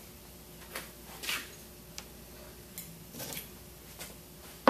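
Scattered light clicks and knocks of stainless steel pump parts being handled, with a sharper tick about two seconds in.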